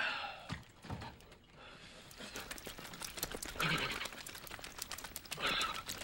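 A wet man shaking himself dry like a dog, flinging water off his hair and body: a rapid flapping, spattering rattle, broken by a few short, loud animal-like snorts.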